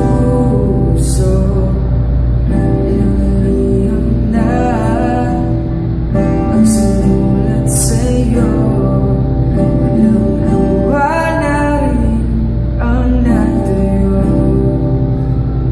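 A male voice sings a Tagalog ballad, accompanied by his own Lakewood acoustic guitar. The sung lines bend and glide in pitch over steadily ringing guitar chords.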